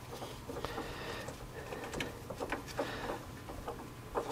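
Faint, scattered metallic clicks and taps of a split generator pulley's halves and spacer shims being handled as one more spacer is fitted between the halves to loosen an over-tight fan belt.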